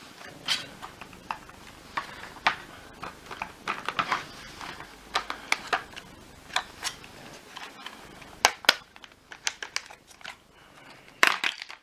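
Plastic parts of a vacuum cleaner floor head clicking and clattering as they are handled and prised apart by hand: irregular sharp clicks and knocks, coming thicker near the end.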